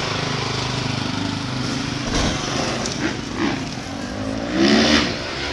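Motocross bike engine running and revving, its pitch rising and falling a few times, loudest near the end.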